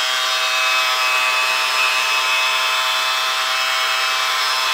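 Handheld hair dryer with a comb attachment running steadily: a motor whine with a few fixed tones over rushing air. It is blowing on lace-wig glue at the hairline to dry it until it turns tacky.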